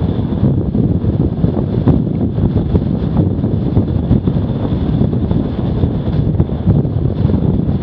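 Wind buffeting the microphone of a camera on a bicycle descending at speed: a loud, steady rumble.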